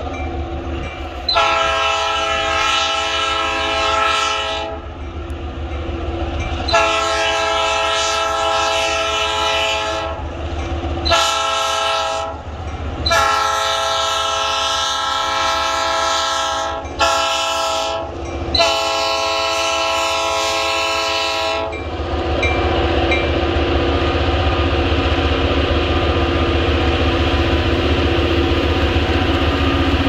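Approaching EMD diesel freight locomotive sounding its multi-chime air horn in six blasts: long, long, short, long, short, long, a grade-crossing warning pattern. After the last blast, about two-thirds of the way in, the locomotive's diesel engine is heard running under load and growing louder as it nears.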